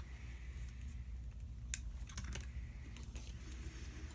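A few faint, sharp clicks and taps from handling a small plastic micro-drone frame and its parts, over a steady low hum.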